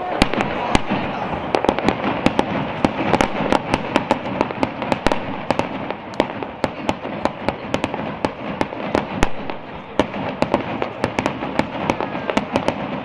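Aerial fireworks display: a fast barrage of shell bursts, many sharp bangs a second with crackling, over a steady wash of noise.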